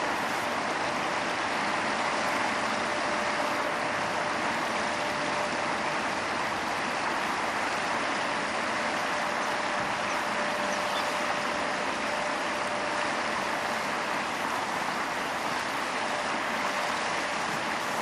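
Shallow river water running steadily over stones, an even rushing noise, with a faint steady hum beneath it that fades out about halfway through.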